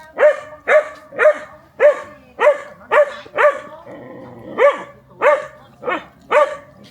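A dog barking repeatedly, about two barks a second, with a short pause midway through.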